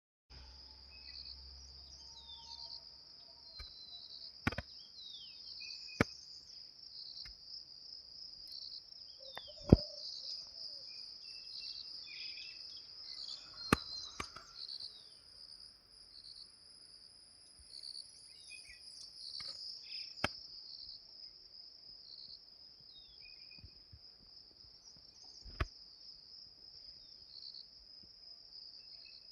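A steady, high chorus of insects such as crickets, pulsing slightly throughout, with scattered short bird chirps. About six sharp clicks break through, the loudest events.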